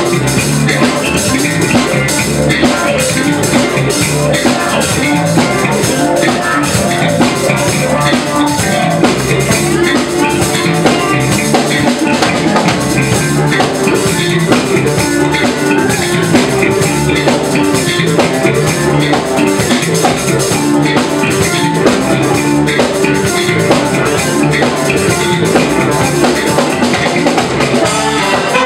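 Live band playing loudly: a horn section of saxophones, trombone and trumpet over a drum kit and guitar, with a steady beat.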